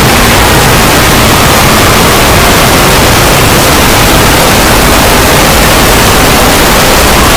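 Extremely loud, heavily distorted meme sound effect: a constant wall of clipped, static-like noise filling every pitch at near full volume, with no breaks.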